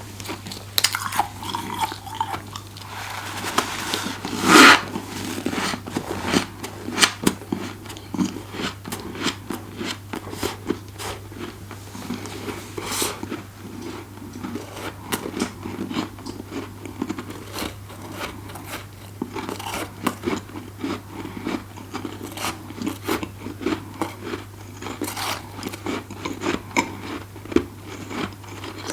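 Close-up eating of deep-freezer frost: dense, irregular crunching and chewing of the powdery frost, with one louder, longer crunch about four seconds in.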